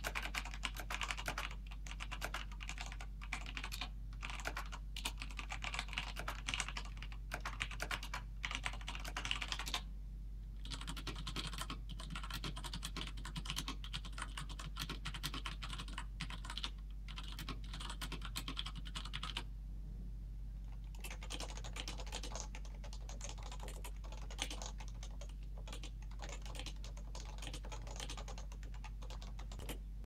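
Fast continuous typing on three mechanical keyboards in turn, with a short break between each. First a DSI Mac Modular with Cherry MX Brown switches, then about ten seconds in a WASD V2 with MX Browns and rubber O-ring dampeners, then near twenty seconds a Topre Realforce with its electro-capacitive rubber-dome switches.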